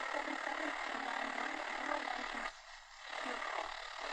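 Static and hiss from a Realistic DX-350 portable radio tuned between stations on the AM medium wave band, with a weak, distant station faintly buzzing under the noise. The level dips briefly about two-thirds of the way in.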